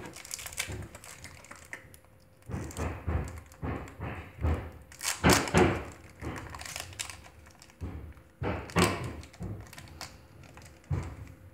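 A foil trading-card booster pack crinkling and rustling in a child's hands as it is opened, with irregular knocks and thumps, the loudest about halfway through.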